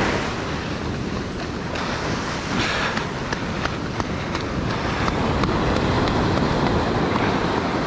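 Shore surf washing up and draining back over the sand, with wind buffeting the microphone.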